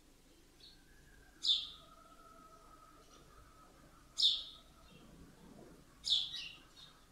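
A bird chirping in the background: three short, high chirps falling in pitch, about two seconds apart, the last one doubled.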